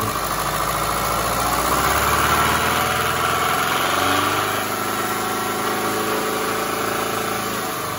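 A 1999 Subaru Forester's EJ25 2.5-litre flat-four boxer engine is revved from idle. The engine sound builds over the first couple of seconds, holds, then eases back as the revs come down. The owner cannot identify a noise in the engine that appears only within a certain range of engine speed: it fades just past about 3,000 RPM and comes back as the revs fall.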